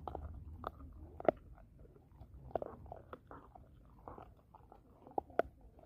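American Pit Bull Terrier chewing on a bone: irregular crunches and cracks, the sharpest about a second in and twice near the end.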